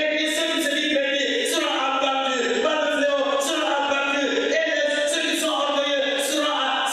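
A man singing a worship chant into a microphone, in held, gliding notes.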